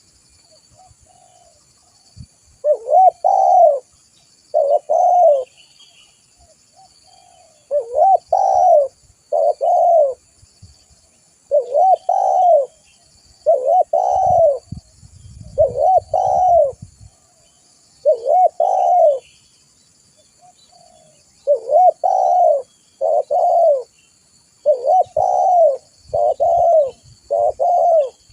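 Spotted dove (tekukur) cooing vigorously: phrase after phrase of short, rounded coos with brief pauses between. Small birds chirp faintly in the background.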